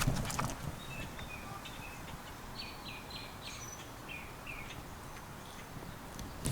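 Outdoor ambience: a bird chirping in runs of short, repeated notes over a steady low background rumble, with a few clicks right at the start.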